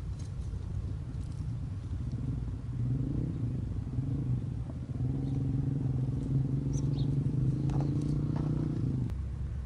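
A motor engine hums steadily and low, building up over the first few seconds and stopping abruptly about a second before the end. Faint bird chirps come through over it.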